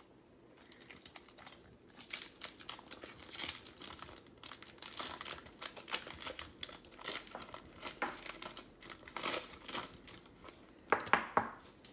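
Plastic wrapper of a 2020-21 NBA Hoops trading card pack being torn open and crinkled by hand: a run of irregular crackles, with a couple of louder ones near the end.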